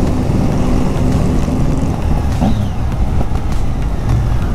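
Motorcycle engine running steadily while riding along at an even speed, heard on board the bike with wind rushing over the microphone.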